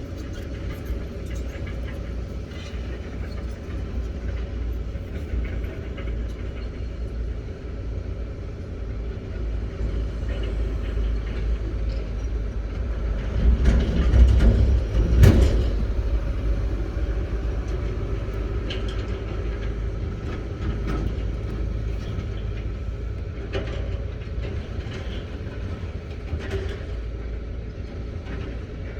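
Excavator's diesel engine running with a steady low rumble. Around the middle it swells louder for about two seconds and ends in a sharp knock, and a few lighter clanks come later.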